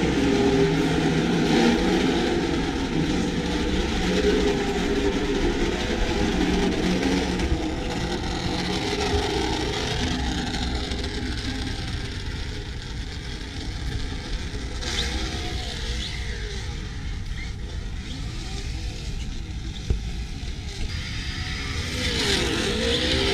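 Vaterra Twin Hammers radio-controlled truck driving, its electric motor whining up and down in pitch with the throttle over a steady rush of tyre and ground noise.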